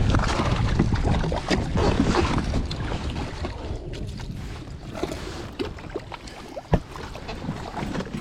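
Wind buffeting the microphone on a kayak, loudest at first and easing off, with small knocks and water sounds around the hull and one sharp click near the end.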